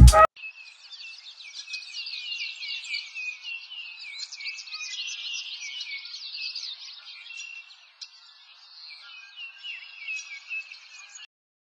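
A chorus of small birds chirping and twittering, many short quick notes overlapping, that stops abruptly near the end.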